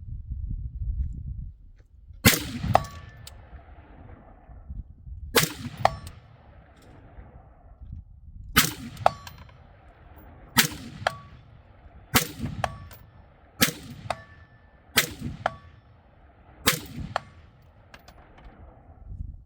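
Eight gunshots fired one at a time, 1.5 to 3 seconds apart, each followed about half a second later by the ringing clang of the bullet striking a steel target.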